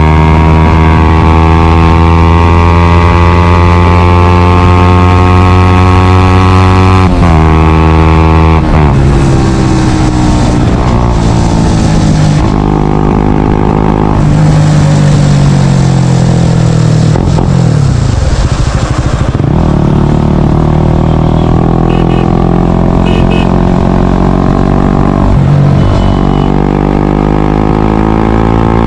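Single-cylinder Honda CBR125R/150R engine through a Yoshimura R77 full exhaust system. The exhaust note climbs steadily for about seven seconds, breaks off briefly twice, then rises and falls with the throttle. It drops low twice before climbing again near the end.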